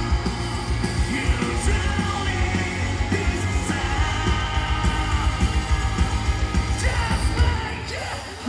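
A live band playing through a festival PA, with sung and shouted vocals over heavy bass and drums, heard from within the crowd. The music dips briefly near the end.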